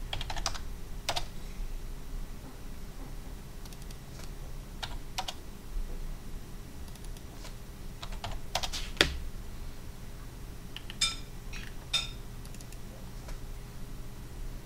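Scattered keystrokes on a computer keyboard, coming in small irregular clusters, as dimension values are typed into CAD software, over a low steady hum.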